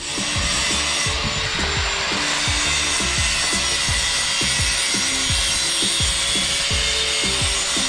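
Handheld power tool abrading a metal bimini-frame tube, a steady grinding hiss with a faint motor hum that starts right at the outset. Background music with a bass line plays underneath.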